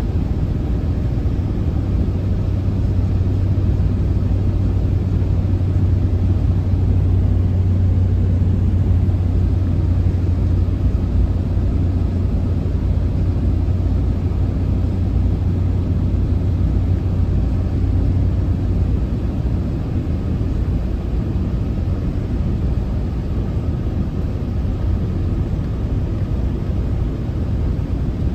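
Steady road and engine noise inside a moving vehicle's cabin at highway speed. A low hum under the noise fades out about two-thirds of the way through.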